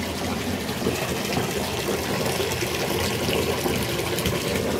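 Water running steadily into a bathtub, churning a layer of bubble-bath foam.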